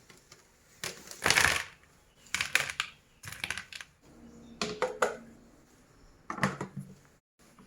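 Sun-dried pumpkin pieces being handled and set down for re-steaming: several short bursts of light clicking and clattering, the loudest about a second and a half in.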